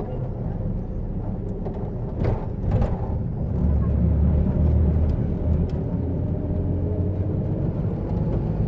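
Interior of a Peruvian combi microbus under way: a steady low engine and road rumble that swells for a couple of seconds in the middle, with a few short rattles about two seconds in.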